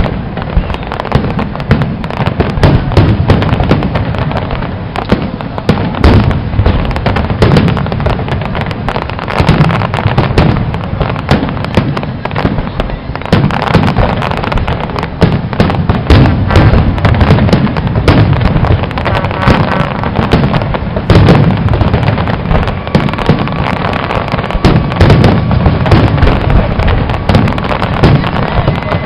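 Fireworks display: aerial shells and crackling effects going off in a dense, unbroken barrage of loud bangs and crackle, many reports every second.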